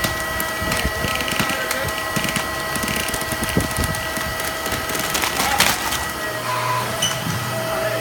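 TSI TC700 baler compacting its load: dense crackling and crunching over the steady whine of its running machinery, with one sharp snap about five and a half seconds in. After about six seconds the crunching stops and a steady low hum continues.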